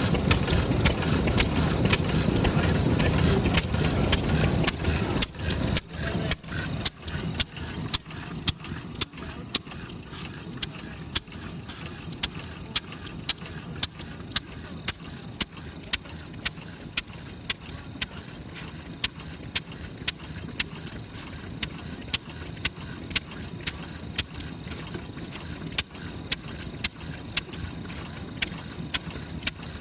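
Kubota FF-type 10 hp single-cylinder stationary engine running slowly and evenly. Each firing stroke is a sharp pop, about one a second, with no misfires now that the spark plug has been replaced. The first few seconds are louder and denser before the slow, regular firing sets in.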